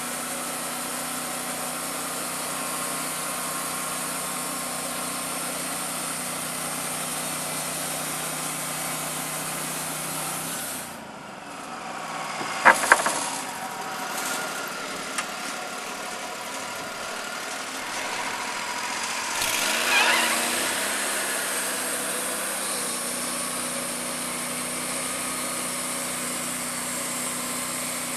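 Engine of a portable band sawmill running steadily. About eleven seconds in it drops back and two sharp metallic clanks follow; around twenty seconds in it revs up again, rising in pitch, then runs steady.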